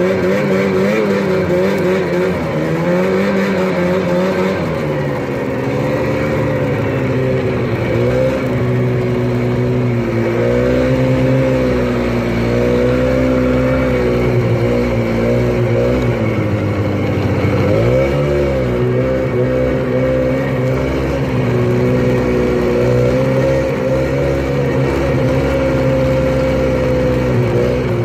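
Snowmobile engine running under way, its pitch rising and falling with the throttle. About two-thirds of the way through it drops briefly and climbs again.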